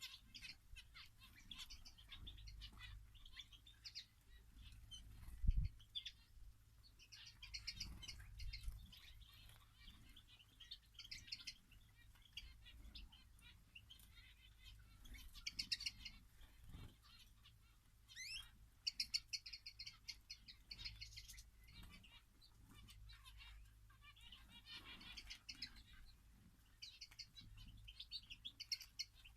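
Small finches in an aviary chirping and twittering, many short high calls overlapping throughout, with a brief low thump about five and a half seconds in.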